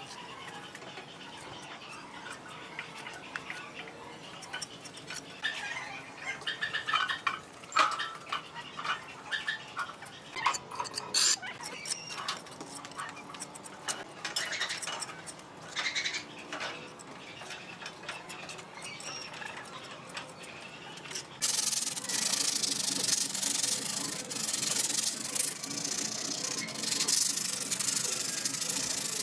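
A small steel trowel scraping and smoothing cement on a concrete chimney cap in scattered short strokes. About 21 seconds in, a louder, steady rubbing starts as the hardened concrete surface is sanded down by hand.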